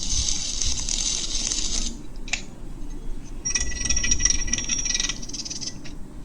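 Welding arc crackling and sizzling in two runs: one that stops about two seconds in, and a shorter one of about a second and a half near the middle, with a single sharp click between them.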